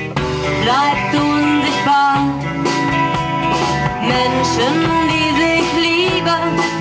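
Live band playing with electric guitars, amplified through small amps and speakers. A melody line slides between notes over held chords.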